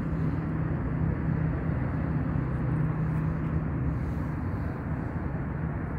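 Steady low engine drone from distant traffic or machinery, with an even outdoor background hiss.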